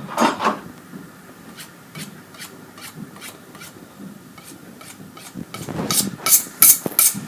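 Scraping strokes of a butcher's knife. A short scrape comes at the start, then faint ticks, and about six seconds in come louder, sharp strokes, about three a second.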